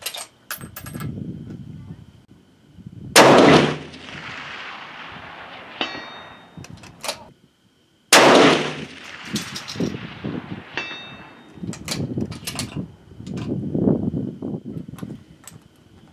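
Two shots from a Savage 10FP-LE .308 Winchester bolt-action rifle, about five seconds apart, each echoing away over a second or more. About two and a half seconds after each shot a faint ring comes back from a steel target hit far downrange. Short metallic clicks fall between the shots.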